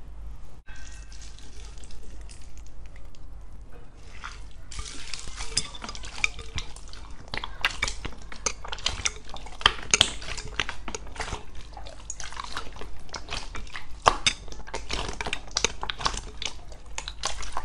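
Hands squishing and kneading clear slime packed with small foam beads: sticky, wet squelches with dense crackling pops. It gets busier and louder about four or five seconds in.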